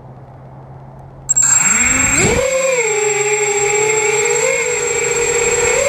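FPV racing quadcopter's brushless motors spinning up from rest for take-off: a sudden start about a second in, a fast rising whine, then a steady high whine that wavers a little in pitch as it flies.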